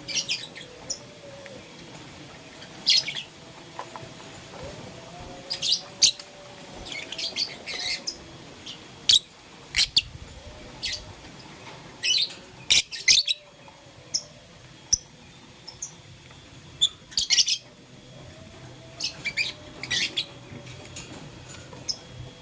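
Lovebird giving short, sharp high-pitched chirps in irregular clusters, some single and some in quick runs of several.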